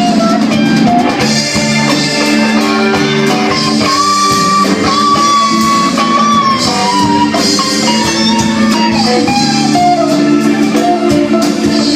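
Live band playing, with guitar and drum kit. A held, bending high melody line comes in about four seconds in and slowly falls.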